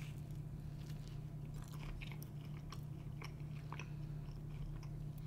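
A person biting into and chewing a slice of pizza, with faint scattered crunches, over a steady low hum.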